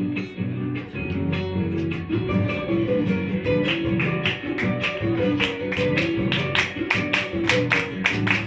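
Live folk band playing an instrumental passage of an Argentine gato, an acoustic guitar strummed in a quick, steady rhythm under a melody line.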